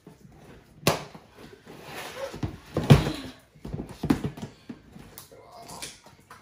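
Hollow knocks and thumps of large plastic storage bins being lifted, tipped and set against each other on a table, the loudest about three seconds in, with a low shuffling of heavy slime sliding inside.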